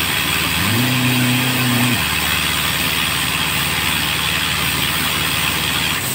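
Crawler-mounted quarry drilling machine running, its drill working into the stone with a steady hammering noise and a strong hiss. A higher running tone rises in under a second in, holds, and cuts off at about two seconds.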